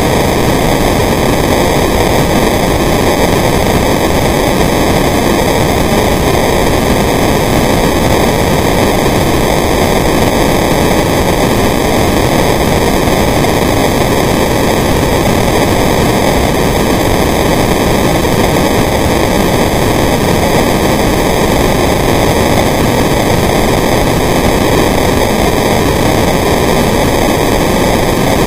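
Steady, loud, even rushing noise from a camera recording underwater inside its housing, with no breaks or bubble bursts.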